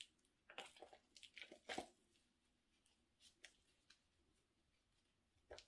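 Faint crunching and scraping of potting soil being dug out by a gloved hand: a quick run of short crunches in the first two seconds, then a few scattered ones.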